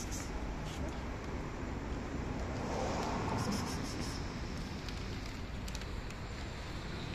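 Steady background rumble of street traffic, swelling briefly about three seconds in.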